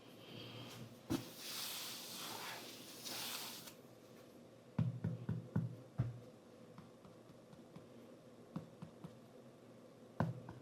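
Packaging being handled during an unboxing: a few seconds of soft rustling with a click, then a quick cluster of light knocks and taps, scattered clicks, and one sharper knock near the end.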